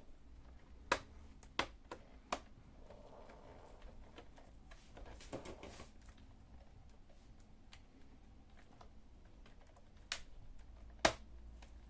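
Plastic front bezel of a Sony Vaio VPCEH laptop screen being pried off by hand, its clips snapping loose in sharp clicks: three in the first few seconds, quieter rustling of plastic in the middle, and two more near the end.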